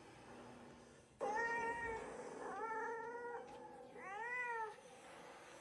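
A cat meowing: three drawn-out calls of about a second each, the last rising and then falling in pitch.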